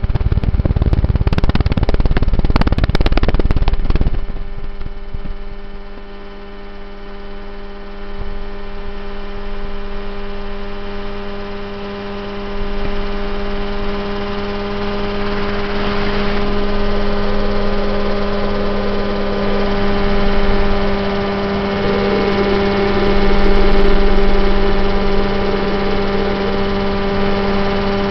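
Mosquito helicopter's engine and rotor running steadily in flight, heard from on board as a steady drone of even overtones at a constant pitch. For the first four seconds a rough, noisier rush covers it before the drone settles clear.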